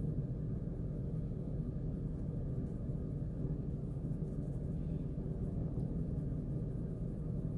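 Steady low rumble of background room noise, with no distinct events.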